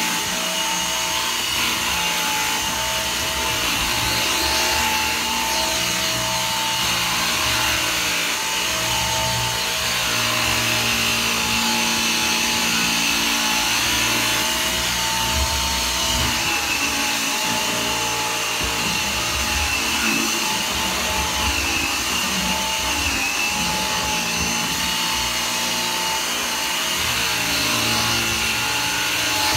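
G-Tech AirRam 2 cordless upright vacuum cleaner running steadily over carpet: a constant motor whine over a rushing hiss, its pitch wavering slightly now and then.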